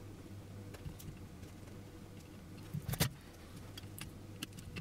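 Quiet hand soldering of a circuit board: a steady low hum under faint scattered ticks, with a brief cluster of louder clicks and knocks about three seconds in as the soldering iron and board are handled.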